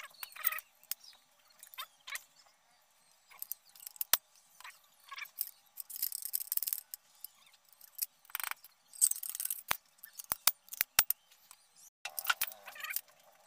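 Scattered metallic clicks, taps and rattles of a foot-pump air gun being handled and taken apart by hand, with a quick run of clicks about ten seconds in and a couple of brief scrapes.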